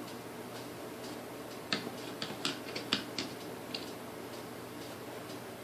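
Light clicks and taps of hand tools and small metal parts being handled during disassembly, about half a dozen of them, starting about a third of the way in, over a steady low hum.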